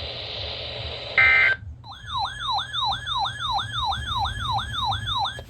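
Radio hiss with a short burst of tones about a second in, then an electronic siren-like alert tone. The tone is a quick falling sweep repeated about three times a second for some three seconds, the kind of attention tone broadcast just ahead of a new severe weather warning.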